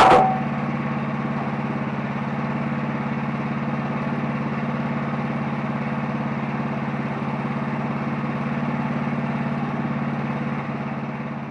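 Wood-Mizer LT15 Start portable sawmill's engine running steadily at an even pitch, with a sharp clank right at the start.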